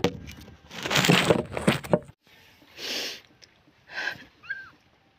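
Rustling and knocking of a phone being handled for about two seconds, then three short breathy sniffs about a second apart from a woman crying.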